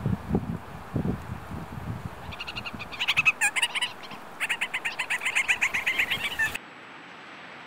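Antipodes parakeet giving a rapid chattering call, a fast run of harsh notes at about seven a second, in two bouts that stop suddenly about a second before the end. A few low thumps come before the chatter.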